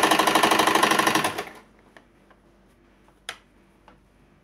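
Domestic electric sewing machine stitching polar fleece at a fast, even rate, stopping about a second in. A few faint clicks follow, one sharper than the rest about three seconds in.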